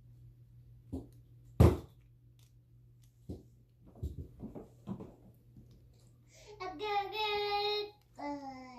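Sharp plastic knocks and clicks of a childproof cabinet lock being handled and fitted, the loudest about a second and a half in. Near the end a toddler gives one long high-pitched vocal call, then a shorter one falling in pitch.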